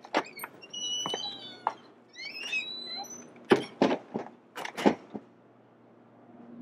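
A wooden door being opened and shut: sharp clicks and knocks, high squeaks in the first three seconds, then a cluster of louder thuds about halfway through.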